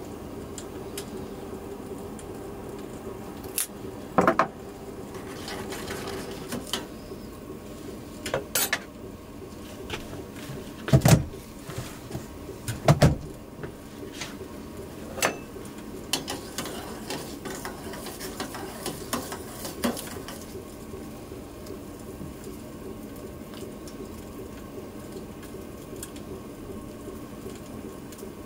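Cooking at a gas stove: scattered clinks and knocks of pots, a pan and metal utensils, with two louder thuds about eleven and thirteen seconds in. A steady low hum runs underneath.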